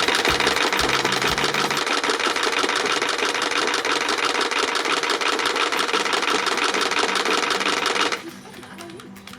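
Wooden Easter rattles (Klappern) clattering rapidly, in a dense, fast run of dry clacks that stops abruptly about eight seconds in.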